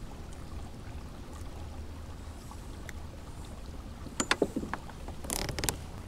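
Handling noise aboard a plastic fishing kayak over a low, steady rumble. A few sharp knocks come about four seconds in, then a short splash as the hand holding the fish goes into the water to release it.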